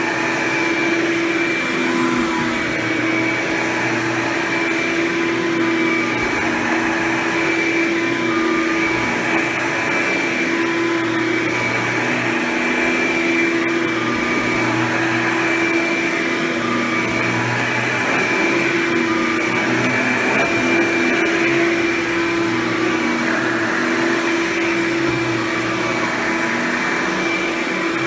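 Hoover Power Drive Supreme upright vacuum cleaner running with a Quadraflex brush roll and its self-propelled drive engaged. It makes a steady motor whine over a rushing air noise, and the motor note shifts slightly every few seconds as it works.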